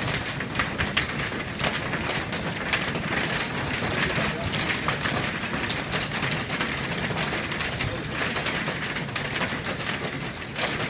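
Hail and heavy rain pelting office windows: a dense, steady hiss with many sharp ticks of hailstones striking the glass.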